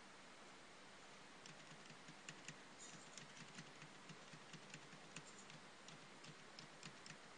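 Computer keyboard being typed on: faint, quick, irregular key clicks that start about a second and a half in, over a steady low hiss.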